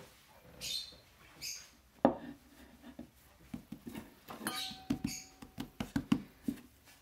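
Hands working a log of biscotti dough on a floured wooden board: two brief rustles, a sharp knock about two seconds in, then a run of irregular soft taps and pats as the dough is pressed and shaped.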